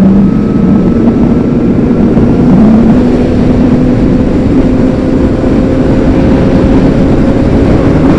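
Honda CBR600RR sport bike's inline-four engine running at a steady highway cruise, its note creeping slightly upward, mixed with heavy wind and road noise.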